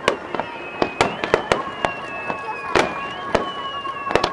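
Fireworks finale: aerial shells bursting, a dozen or so sharp bangs in quick, irregular succession, with a few steady high tones running beneath.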